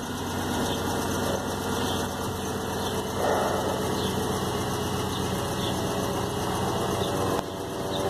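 Jeep Grand Cherokee's 5.7-litre Hemi V8 idling steadily with a tick, which the owner puts down to an exhaust leak from a broken upper rear bolt on the driver-side exhaust manifold.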